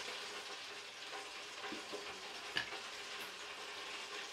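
Faint, steady sizzling of hot frying oil, with a few sharp crackling pops, the clearest about two and a half seconds in.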